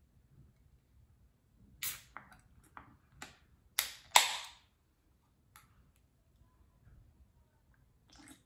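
Pull-tab aluminium can of Monster Rehab tea lemonade being opened: a few quick small clicks as fingers work the tab, then a sharp crack with a brief hiss as the lid breaks open about four seconds in.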